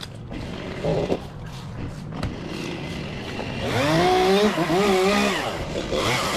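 Two-stroke chainsaw, quiet at first, then throttled up about four seconds in, its pitch rising and dipping as the engine revs.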